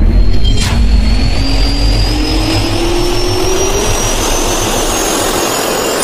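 Jet-turbine spool-up sound effect for a logo intro: a steady rush of air and low rumble under a whine that rises slowly in pitch, with a sharp swish about half a second in and another hit near the end.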